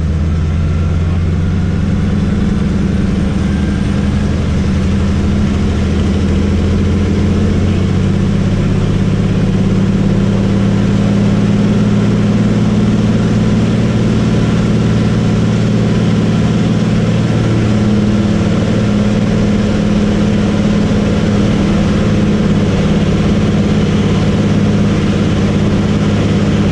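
Pratt & Whitney R-985 nine-cylinder radial engine and propeller of a DHC-2 Beaver running steadily at takeoff power, heard from inside the cockpit during the takeoff and climb-out, a little louder about ten seconds in.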